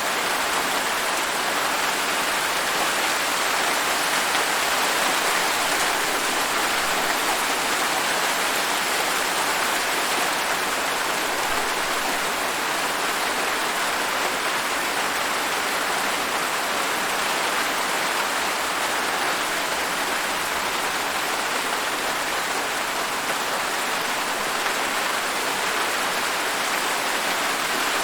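Steady rain falling in a dense, even hiss of drops, with no single drops or thunder standing out.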